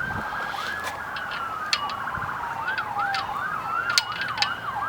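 Ambulance sirens sounding together: a slow wail falling and rising in pitch alongside a faster repeating yelp, with a few sharp clicks.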